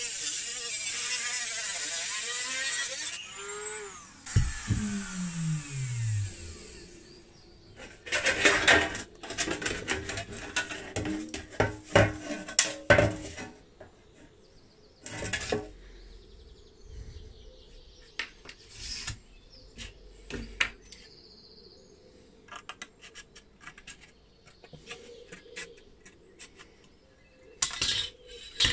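A rotary tool's cut-off disc slicing through a thin sheet-metal tin, a steady high hiss for about three seconds, then the motor winding down with a falling hum. After that, clattering and rattling of the thin cut sheet metal being handled and flattened, with a few sharper clanks near the end.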